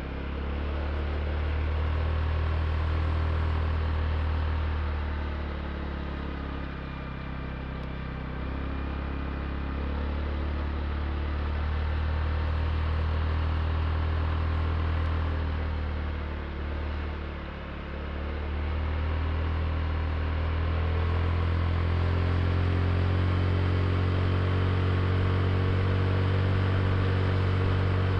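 Honda Click i scooter's single-cylinder engine running under way at a steady, low hum. The throttle eases off twice, briefly, and the engine picks up and holds a little louder for the last third.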